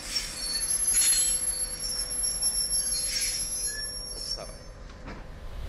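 Railway train wheels squealing on the rails: a high screech over steady running noise, loudest about a second in and fading toward the end.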